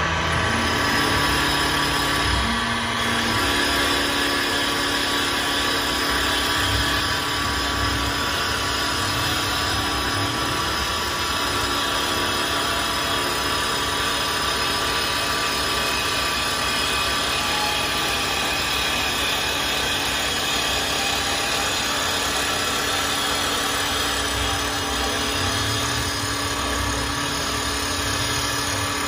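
CNC wood lathe with double-sided cutters running, spinning a wooden blank while the cutters shave it; a steady machine whine over a continuous hiss, with a new lower hum joining a few seconds in.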